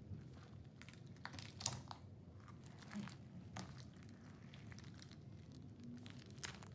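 Water-bead stress ball being squeezed and rubbed against a wooden tabletop, giving faint, scattered crinkly crackles and squishes, with a sharper crackle about a second and a half in.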